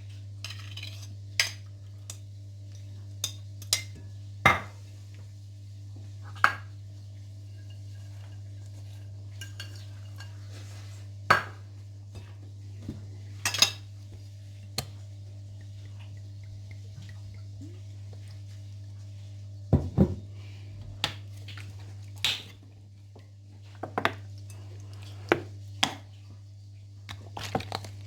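Kitchen utensils and dishes clinking and knocking, about twenty separate clinks spread unevenly, over a steady low hum.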